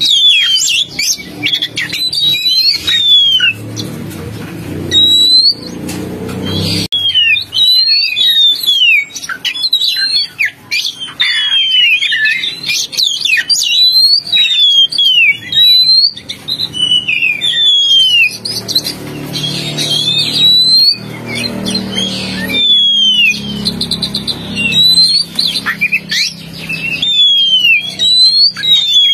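Oriental magpie-robin (kacer) song: a fast, unbroken run of loud, clear whistled notes, many sliding down in pitch, some overlapping one another. A low rumble lies beneath it twice.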